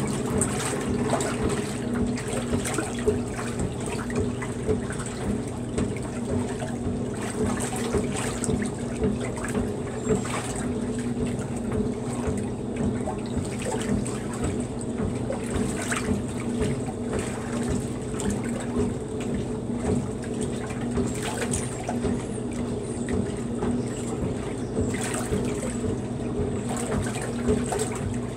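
Maytag wringer washer agitating a load of clothes in soapy water: continuous sloshing and splashing over the machine's steady hum.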